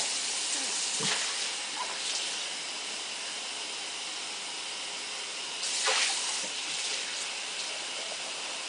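Kitchen sink tap running steadily while dishes are washed, with a short knock about a second in and a louder brief splash or clatter near six seconds.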